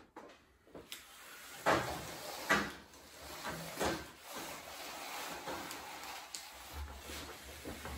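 Concertina blind's frame rails knocking against a wooden tabletop a few times in the first half, then sliding with a steady rustle as the pleated fabric is drawn out.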